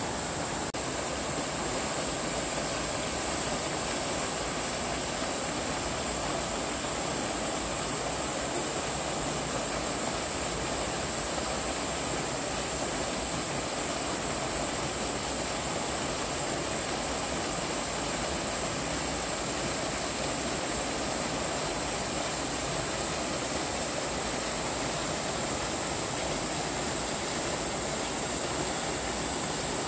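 Waterfall and mountain stream rushing steadily, with a constant high hiss above the water noise.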